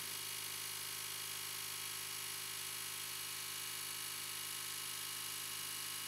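Baby Lock Enterprise multi-needle embroidery machine running steadily while it sews the satin-stitch border around the hoop, a constant mechanical hum.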